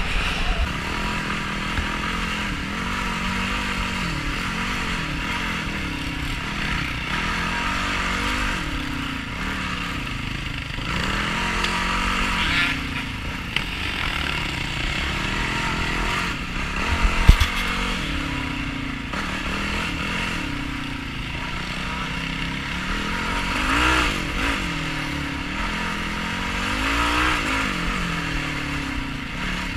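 Yamaha YFZ450R quad's single-cylinder four-stroke engine being ridden off-road, revs rising and falling over and over. There is a sharp knock about seventeen seconds in.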